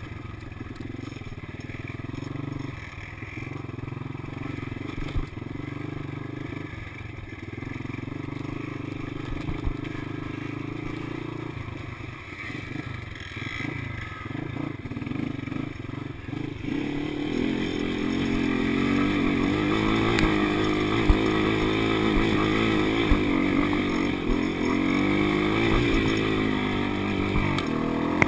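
ATV engine running while being ridden over dirt trails. It turns steadily for most of the time, then about two-thirds in it gets louder and revs up and down with the throttle.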